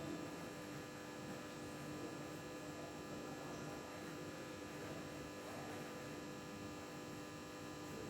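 Old computer unit running with a steady hum made of several fixed tones over a faint hiss.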